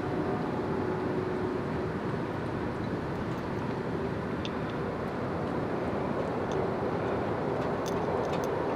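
Steady outdoor background rumble with a few faint ticks in the second half.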